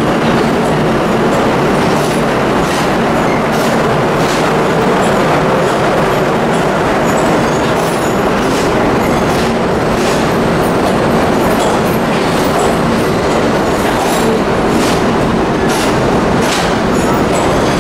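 R32 subway train pulling into the station, its cars rolling past close by with a loud, steady rumble and rattle, broken by irregular sharp clicks from the wheels on the rails.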